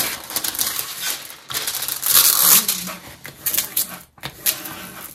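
Crinkling and rustling of a diamond painting canvas and its clear plastic cover film as hands smooth it flat and lift the film, in irregular bursts, loudest a couple of seconds in.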